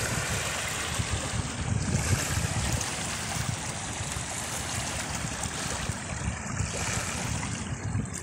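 Small waves lapping and washing over the stones of a rocky river shore, a steady wash of water noise, with wind buffeting the microphone in low rumbling gusts.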